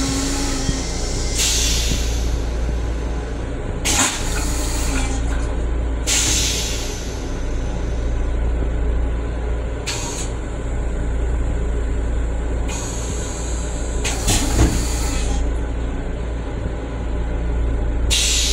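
Steady low rumble of a Metro-North M7 railcar under way, heard inside its restroom. Near the start the toilet's flush drains away. Short hissing bursts come and go every few seconds.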